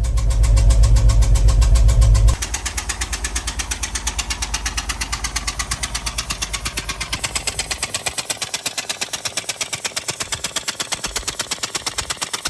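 1969 Ford F350's FE 360 V8 idling with a sharp, rhythmic puffing tick about six times a second, a leak blowing out on one cylinder with a misfire, which the owner takes for a loose or blown-out spark plug. Louder at first, dropping after about two seconds.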